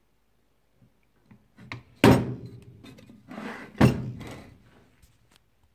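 Old rusty cast-iron hand plane being handled: two heavy clunks, about two seconds in and just under four seconds in, with scraping and a few small metallic clicks between and after.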